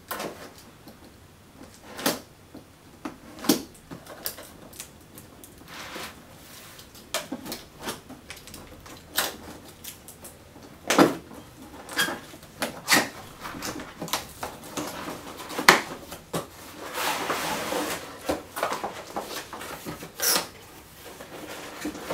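A cardboard shipping box being slit open along its tape with a knife and handled on a table: scattered sharp taps and knocks, a stretch of scratchy rustling about two-thirds of the way through, and the flap pulled open at the end.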